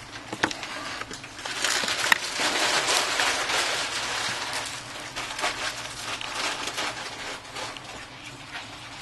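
Scraping and rustling with a few sharp clicks, from a small tool and hands working at the edge of an iPhone 6 during disassembly.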